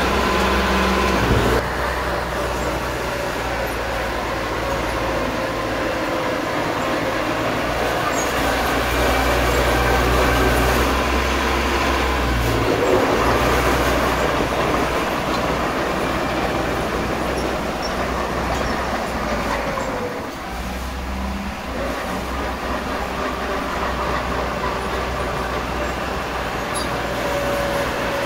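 Small crawler bulldozer's diesel engine running steadily under load as it pushes a pile of loose soil, its low hum dipping briefly twice.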